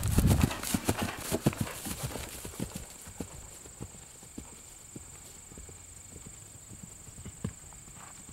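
Hoofbeats of a ridden horse on grass, loud as it passes close and fading over the first three seconds as it moves away, then faint.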